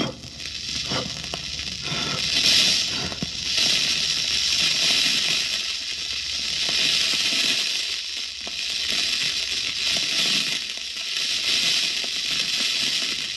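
A gunpowder fuse burning: a steady hiss with fitful crackling and sputtering, a little louder about two and a half seconds in.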